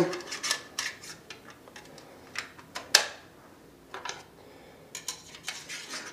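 Metal fire sticks clinking and scraping as they are slid into a folded Firebox stove: a scatter of light clicks and taps, the sharpest about three seconds in.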